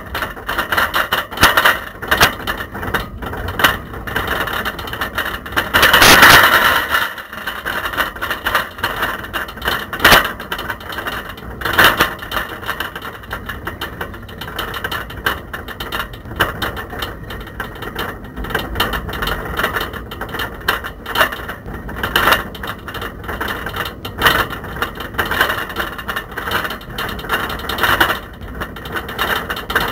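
Camera rattling and knocking about loose in a bicycle basket as the bike rides over a rough, wet lane: constant clattering, with a louder jolt about six seconds in.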